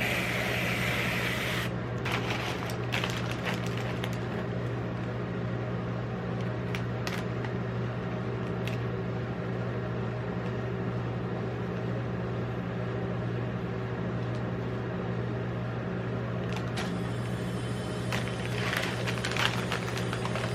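Steady electrical hum of a rolled-ice-cream cold-plate machine's refrigeration unit, with scattered short clicks and scrapes of metal spatulas on the cold plate, briefly scratchier in the first second or two and again near the end.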